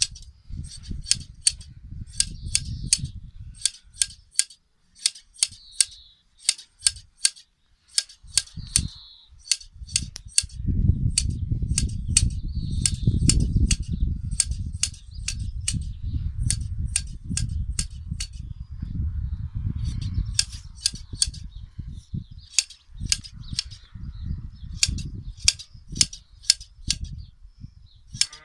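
Scissors snipping through a sheep's fleece during hand shearing: runs of sharp clicking snips, about three a second, with short pauses between runs. A low rumble comes and goes underneath and is loudest through the middle.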